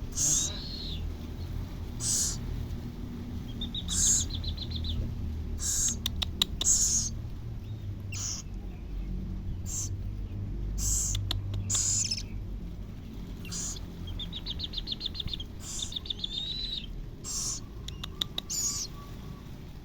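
Baby scops owl calling during feeding: short, hissing, high-pitched screeches repeated every second or two, with a couple of fast chittering trills and a few quick clusters of sharp clicks.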